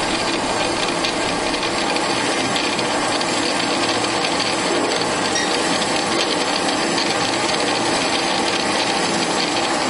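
Qualters and Smith Sawmaster horizontal bandsaw running, its blade cutting through the stock as the head feeds down in a single manual-mode cut. The sound is a steady, dense mechanical noise that does not change.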